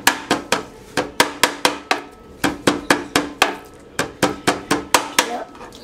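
A knife chopping raw meat on a plastic cutting board: quick runs of sharp chops, about five a second, broken by short pauses.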